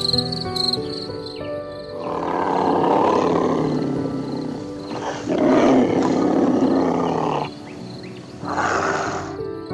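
A large wild animal roaring three times over background music: two long, rough roars, then a short one near the end.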